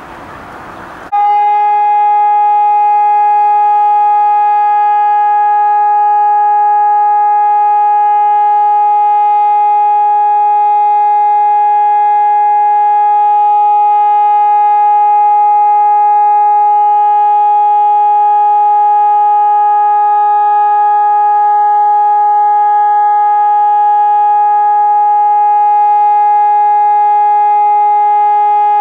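ECN 1200 electronic civil-defence siren switching on about a second in and sounding one steady, unwavering tone, the signal pattern used in Germany for the all-clear (Entwarnung).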